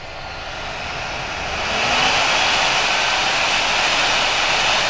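Radial blower fan of a Sapphire Radeon HD 5870 graphics card spinning up to 100% speed. It is a rushing whoosh that rises over about the first two seconds, then holds steady and loud at full speed.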